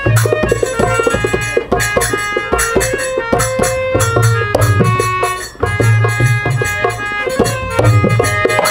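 Instrumental backing music of an Indian folk-style song, with tabla-like hand drums and a melody line over a pulsing bass, and no singing.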